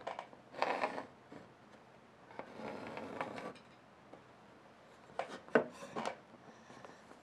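Quiet handling noises as a painter works with a wooden guide stick and a thin brush: soft rubbing, then a cluster of light taps and clicks about five seconds in.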